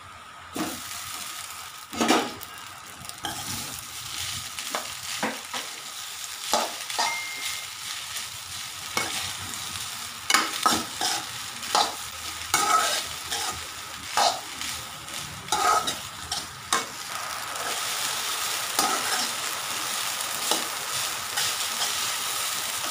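Boiled rice stirred into fried cumin seeds in a hot metal kadai: a steady sizzle, with a metal ladle knocking and scraping against the pan many times, the knocks growing fewer near the end.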